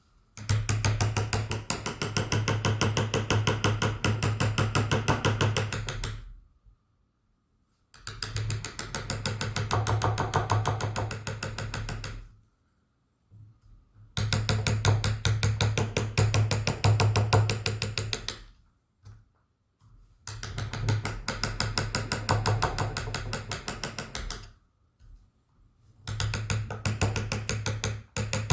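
Rapid, even taps of a wooden mallet driving a carving chisel into wood, in bouts of several seconds broken by short pauses.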